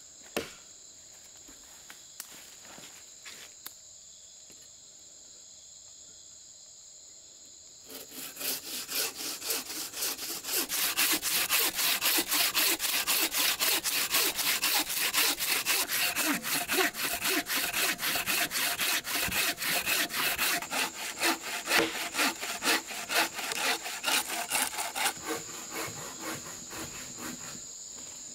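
Hand bow saw cutting through a fallen tree trunk with quick, even back-and-forth strokes, starting about eight seconds in and fading out near the end as the cut goes through.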